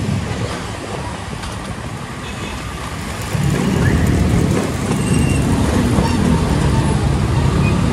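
Road traffic and a vehicle engine running, a steady low rumble that gets louder about three seconds in.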